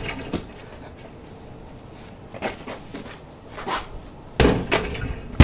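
A basketball being bounced and shot at an outdoor hoop: a few dull thuds, then a louder knock and clatter near the end as the ball reaches the backboard and rim.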